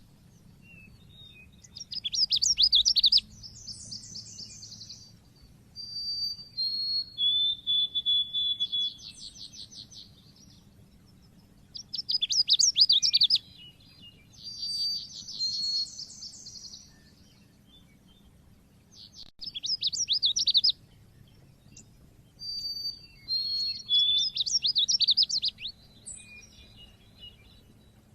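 White-eye (pleci) singing loud, fast, high chirping phrases of one to two seconds each, repeated about every few seconds with short pauses between.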